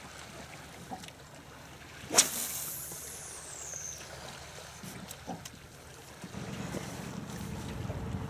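Wind and light water noise around a fishing boat on the river. A sharp click comes about two seconds in, followed by a faint high whine that falls in pitch over about two seconds, and a few small ticks later.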